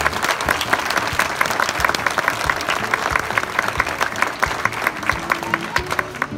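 Audience of many people applauding, with dense, irregular clapping throughout.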